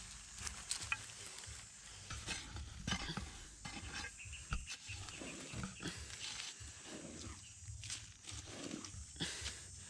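A metal digging blade scraping and chopping into dry, stony soil in irregular scrapes and knocks, with loose dirt and grit rattling.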